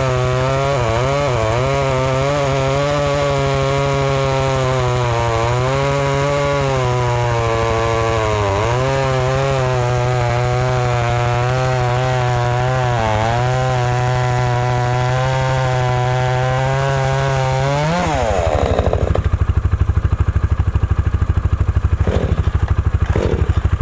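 Vevor 58cc two-stroke chainsaw running at full throttle through a cut, its pitch sagging several times as the chain loads up in the wood. About 18 seconds in it revs up briefly and then drops to a lumpy idle, with a couple of clatters near the end.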